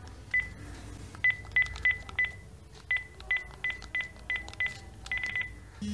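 Phone dialer keypad tones: about a dozen short beeps in quick, irregular succession, one per digit, as a phone number is keyed in.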